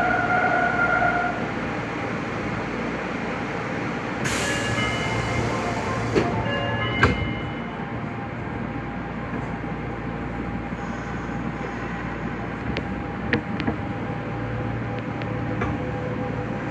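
Nagoya subway Higashiyama Line 5050 series train running through a tunnel, with a steady rumble and hum. About four seconds in there is a brief sharp hiss and some short high wheel squeals, and scattered clicks of wheels over rail joints follow later.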